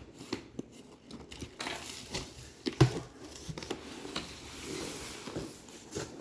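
Packaging being handled during an unboxing: crinkling and rustling with scattered clicks, and one sharp knock a little under three seconds in.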